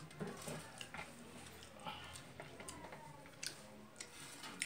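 Eating sounds: chewing with scattered small clicks of fingers mixing rice on a steel plate.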